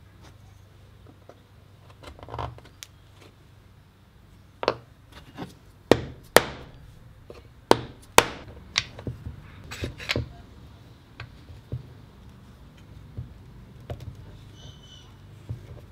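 A series of sharp knocks and taps of wood and steel on a wooden workbench as glued dowels and plates are set in place and steel F-clamps are tightened onto them, with quieter clicks and rubbing between. The knocks are loudest and closest together through the middle of the stretch.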